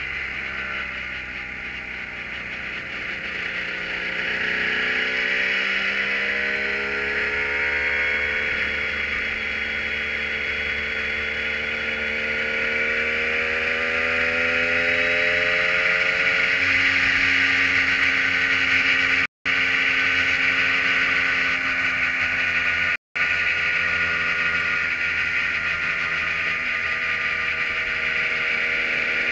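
The engine of the Kohler-powered Prototype 1 race car, heard from the open cockpit, running at part throttle in second gear at low speed. Its pitch dips and then climbs a few seconds in, then holds fairly steady. The sound cuts out completely twice for an instant past the middle.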